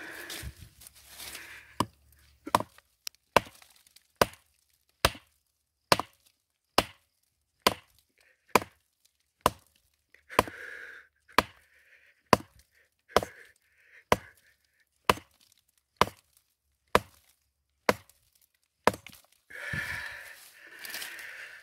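A hand digging tool striking a rocky earth bank in steady, evenly spaced blows, a little more than one a second and about twenty in all, with some scraping and rustling of loosened earth between a few of them.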